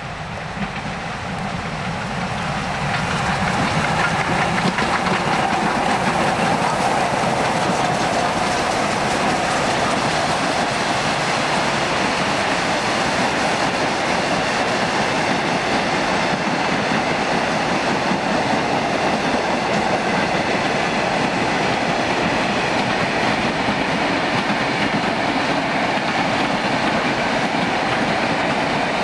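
A pair of R class steam locomotives and their carriages rolling past, coasting downhill rather than working hard. The noise of the train grows over the first few seconds as it draws level, then holds steady as the long string of carriages runs by.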